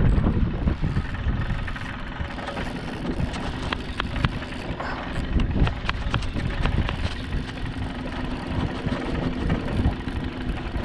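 Outboard motor of a small aluminium fishing boat idling: a steady low hum under a rough low rumble, with a few sharp clicks about four to six seconds in.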